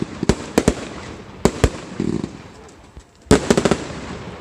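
Fireworks going off: several sharp single bangs in the first two seconds, then a rapid burst of crackling bangs about three seconds in.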